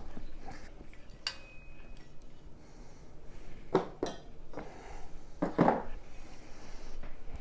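Metal TV wall-mount parts being handled: a handful of sharp clinks and knocks as the bracket pieces are picked up and set down, with quiet rustling of packaging between.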